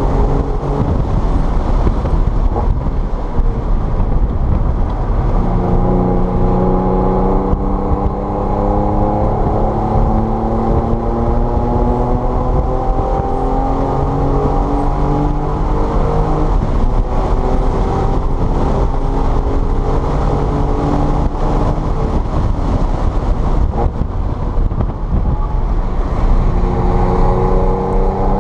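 A car engine under hard acceleration on a race circuit, pulling up steadily through the revs and dropping back at upshifts several times, over a heavy low rumble of road and wind noise.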